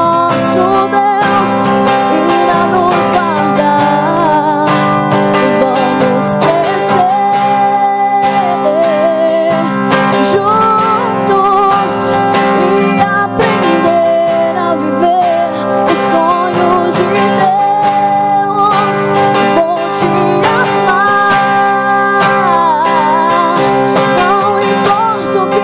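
Acoustic guitar strummed steadily, with a woman singing a wavering melody over it.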